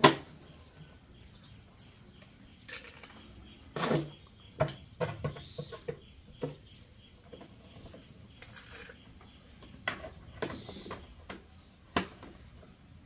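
A plastic water bottle being handled on a concrete floor: scattered taps, knocks and crinkles of the plastic, the sharpest at the very start, about four seconds in and near the end.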